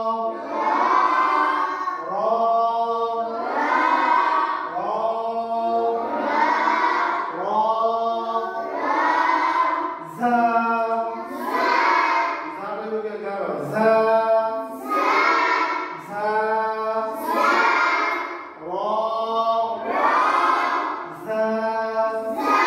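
Group of children chanting Arabic letter sounds in unison as a pronunciation drill, one drawn-out syllable about every second in a steady rhythm.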